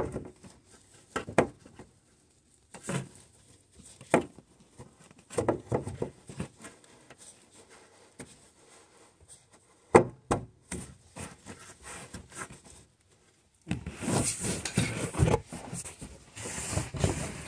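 Gloved hands fitting a new headlight bulb into the headlight housing and putting the dust cover back on: scattered plastic clicks and knocks, then a longer stretch of rubbing and scraping near the end.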